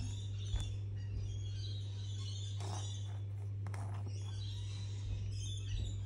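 A steady low hum with faint birds chirping in the background. A couple of soft rustles come about midway as a sheet of peeled acrylic paint skin is handled.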